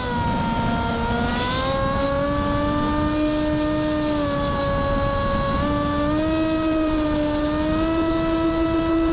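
Electric motor and propeller of an FPV racing wing, a steady pitched whine under changing throttle: it drops in pitch right at the start, climbs back over the next couple of seconds, dips briefly about halfway and rises again near the end. Wind rushes over the onboard camera's microphone underneath.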